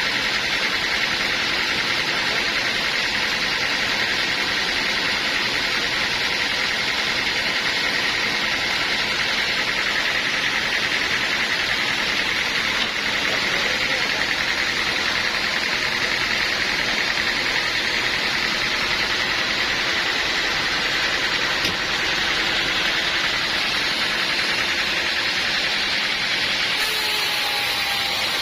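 Portable sawmill running steadily, its blade cutting through wood with a constant high whine over the machine's engine noise.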